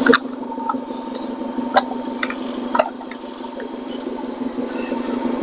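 A steady low hum with a few short, sharp clicks in the first three seconds, typical of small hand tools or hardware being handled during handlebar clamp work.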